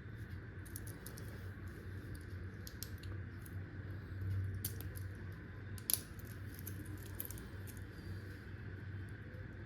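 Scattered light clicks and metallic clinks of an Invicta Pro Diver watch and its metal bracelet being handled, the sharpest about six seconds in, over a steady low hum.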